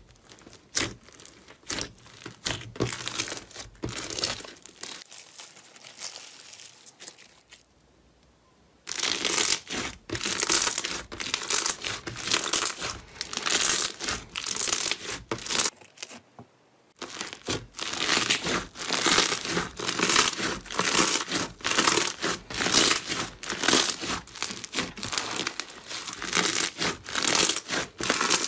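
Slime being handled, giving a dense crackling of small pops and clicks. It comes in three stretches broken by short silences, about 8 and 16 seconds in, and the first stretch is quieter than the other two.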